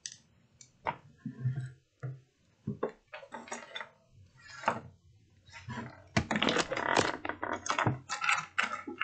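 Irregular clicks, knocks and rustles from a laptop being handled and things on the desk being moved about. They come sparsely at first, then in a dense run from about six to eight seconds in.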